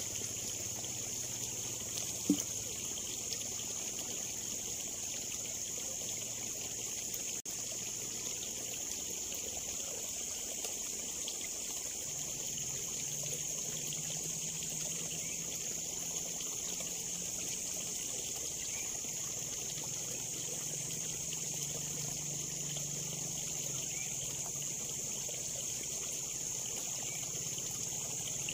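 Water trickling steadily in a small ditch over a steady high hiss, with a faint low hum that grows a little stronger about halfway through. One sharp knock comes about two seconds in.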